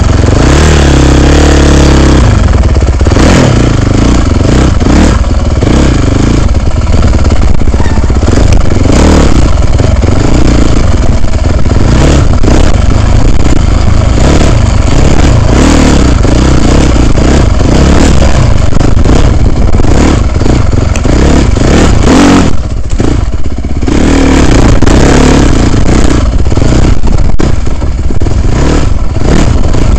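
Dirt bike engine revving up and down as it is ridden over rocky singletrack, heard loud from a helmet-mounted camera, with wind rush and the clatter of the bike over rocks. The engine briefly eases off about three-quarters of the way through.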